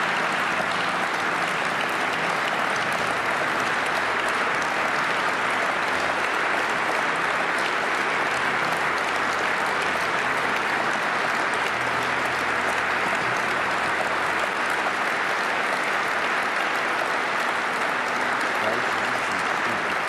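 Large hall audience applauding steadily and without a break.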